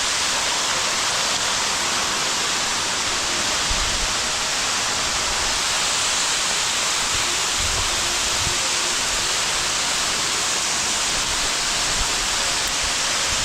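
Waterfall pouring into a creek: a steady, loud rushing of falling water with no change, with a few soft low thumps around the middle.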